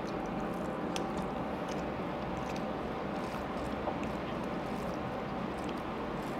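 Steady low room noise, with a few faint clicks as rice and curry are mixed by hand on a steel thali plate.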